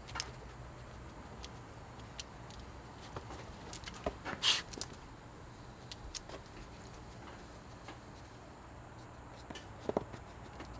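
A dog pawing and mouthing a worn soccer ball on concrete: scattered scuffs, taps and scrapes of the ball and paws, the loudest a brief scrape about four and a half seconds in and a short cluster near the end.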